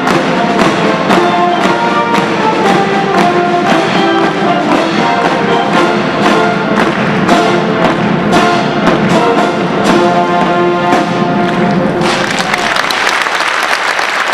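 Military brass band playing over a steady drumbeat, stopping about twelve seconds in, after which the crowd applauds.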